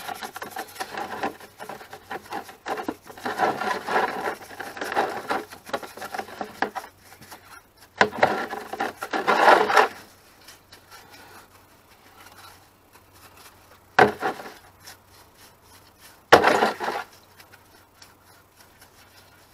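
A small brush scrubbing a greasy metal tube in a bowl of wash liquid, in rapid rubbing strokes that come in spells. Later on there are two sharp knocks a couple of seconds apart.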